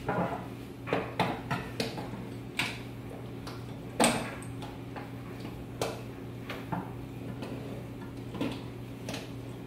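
Irregular clicks and knocks of a hand-held manual can opener being fitted and worked on the rim of a can of coconut milk, the sharpest knock about four seconds in. A steady low hum runs underneath.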